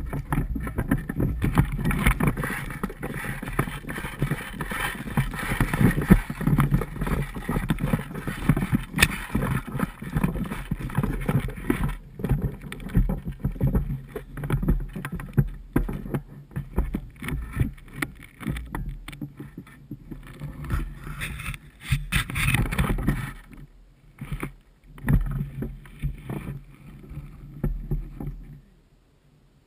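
Footsteps crunching and rustling through dry grass, twigs and brush, with clothing and gear brushing close to the camera. The rustling is dense and continuous at first, then becomes sparser, in scattered bursts, over the last several seconds.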